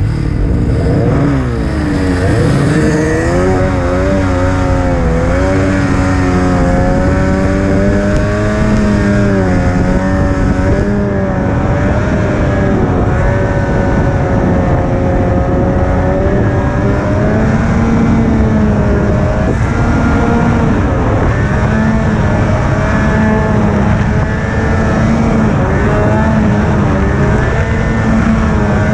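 Snowmobile engine under throttle, ploughing through deep powder. It climbs in pitch as the throttle opens in the first couple of seconds, then holds at high revs with small rises and dips.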